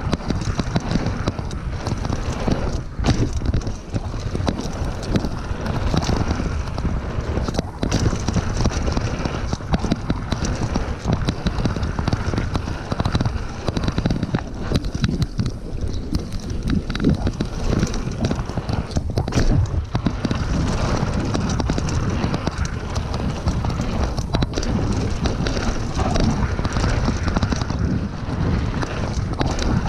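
Mountain bike clattering down a packed-dirt forest trail at speed: tyres rolling over the bumps, with chain, frame and fork rattling in a dense run of knocks over a steady low rumble.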